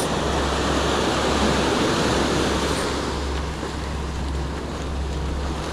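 Ocean surf breaking and washing up the beach, swelling about a second in and easing after about three seconds, with a steady low rumble of wind on the microphone.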